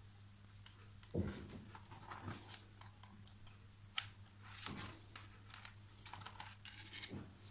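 Small plastic clicks and knocks of a yellow K-type thermocouple mini-plug being fitted into a handheld thermometer's socket, with handling rustle of the device and probe wire; the sharpest click comes about four seconds in. A faint steady low hum runs underneath.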